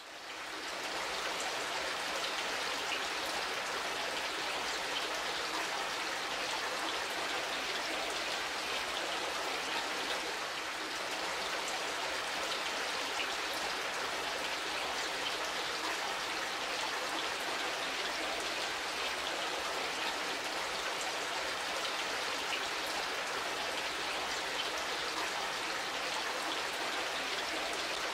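Steady splashing of running water, with many small droplet ticks throughout.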